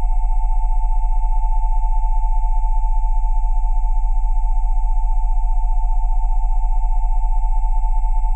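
Synthesized Rife frequency tones at 727, 787 and 880 Hz sounding together over a 20 Hz low tone, held perfectly steady with a fast, even pulsing.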